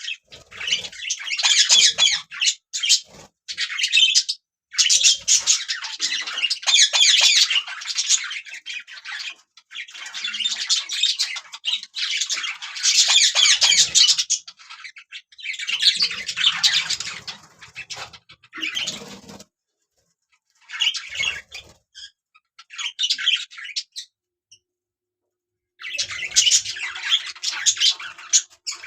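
Budgerigars chattering and chirping in rapid, high-pitched warbles that come in bursts of one to several seconds, separated by short pauses, with a two-second lull near the end.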